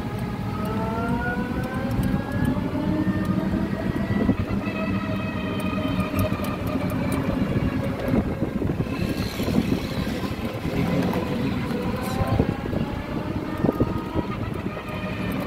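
Electric passenger tricycle's motor whining as it drives, the pitch rising as it picks up speed in the first few seconds and again near the end, over road noise with scattered light rattles and knocks.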